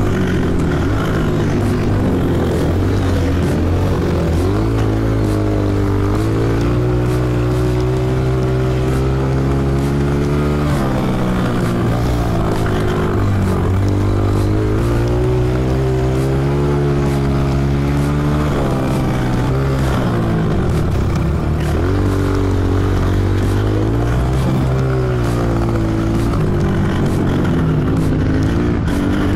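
Honda CRF125F dirt bike's single-cylinder four-stroke engine under riding load, its pitch climbing as the throttle opens and dropping when it closes, several times over, with sharp drops near the 11 and 20 second marks.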